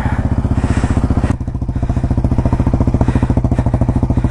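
Yamaha Raptor 700R's single-cylinder four-stroke engine idling at a steady pitch, with a single knock about a second and a half in.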